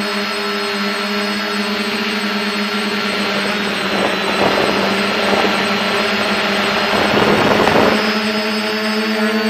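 F450 quadcopter's four electric motors and propellers running in flight with a steady whine, one motor running on a worn bearing. A rushing noise swells over it for a few seconds in the middle.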